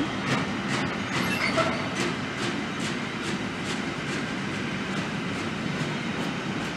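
Freight train of double-deck car-transporter wagons loaded with new cars rolling past. Its wheels click over the rail joints in a regular clickety-clack, about two or three clicks a second, over a steady rumble.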